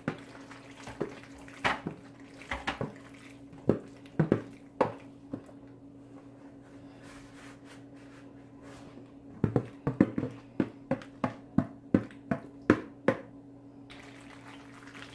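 Spoon knocking and scraping against a plastic mixing bowl as thick macaroni and cheese is scooped and dropped into a disposable aluminium foil pan: a scattered handful of sharp knocks, then a quick run of them near the end, over a steady low hum.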